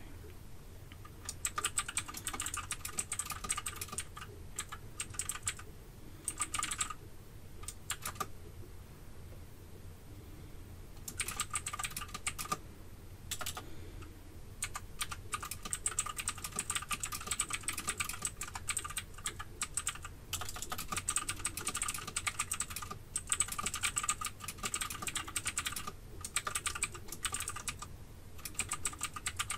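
Typing on a computer keyboard: quick runs of keystrokes broken by pauses of a second or two, the longest about a third of the way in.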